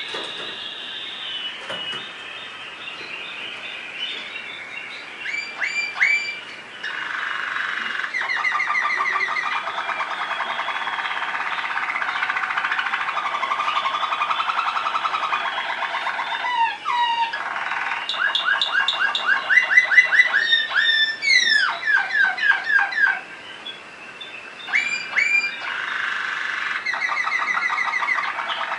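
Waterslager (Malinois) song canary singing a continuous song of rolling trills, rapid repeated notes and quick rising and falling slurred phrases, loudest a little past the middle and easing briefly about three-quarters of the way through.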